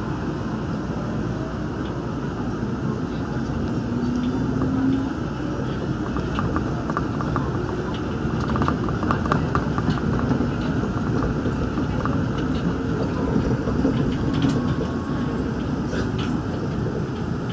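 Daegu Metro Line 3 straddle-beam monorail running on its rubber tyres, heard from inside the car as it pulls out of a station and gathers speed. A steady running noise with a low motor hum that swells and fades twice.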